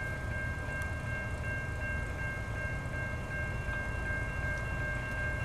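Railroad grade-crossing warning bell ringing without a break, a steady high ringing over a low rumble.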